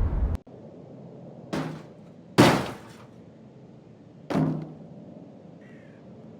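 A loud rumbling blast cuts off abruptly about half a second in, followed by three separate crashing impacts, each dying away quickly; the middle one is the loudest.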